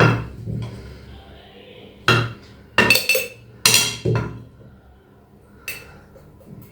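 Several sharp, irregular clinks and knocks of kitchenware against a glass jar as grated ginger and turmeric are tipped into it.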